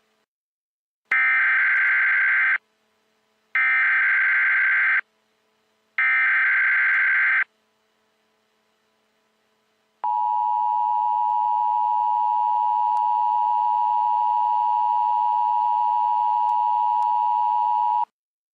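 Emergency Alert System test: three identical bursts of SAME header data tones, each about a second and a half long and about a second apart. After a short pause comes the EAS two-tone attention signal, held steady for about eight seconds before it cuts off.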